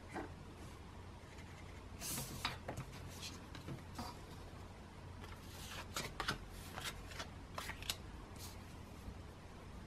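Pen scratching on paper in short, quick strokes of hand lettering, starting about two seconds in, with a denser run of strokes around six to eight seconds in. A faint steady low hum runs underneath.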